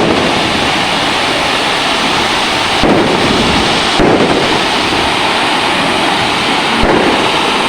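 Diwali fireworks going off: a loud, continuous crackling hiss, with a few sharper bangs about three and four seconds in and near the end.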